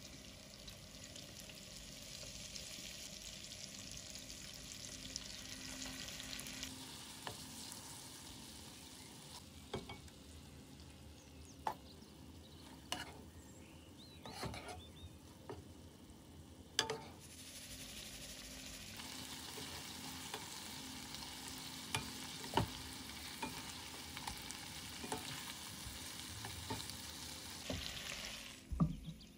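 Salmon fillets sizzling in oil in a nonstick frying pan. A spatula clicks and scrapes against the pan now and then, most often through the middle, where the sizzle is quieter.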